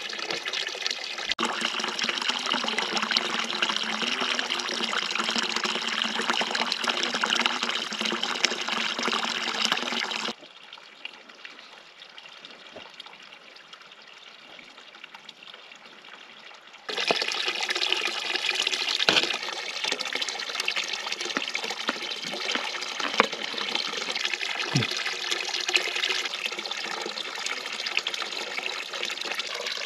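Small stream running close by: a steady rush of flowing water. It falls to a faint wash for about six seconds in the middle, and there are a couple of soft knocks later on.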